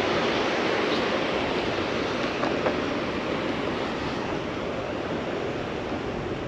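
Ocean surf washing steadily on the shore, easing slightly over the few seconds, with a few faint ticks.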